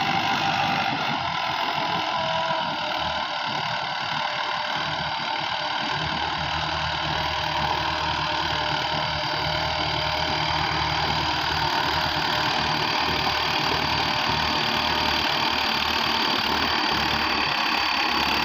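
Mahindra 555 Power Plus tractor's diesel engine running steadily under load while its PTO-driven rotavator churns the soil. The sound grows a little louder near the end as the tractor comes close.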